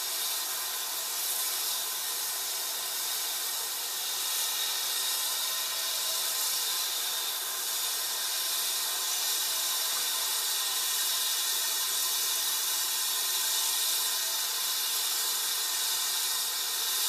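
BR Standard Class 7 'Britannia' steam locomotive 70013 standing at a platform, hissing steam steadily.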